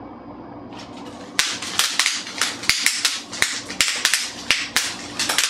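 Bubble wrap being popped by hand: a quick, irregular run of sharp pops, several a second, starting a little over a second in.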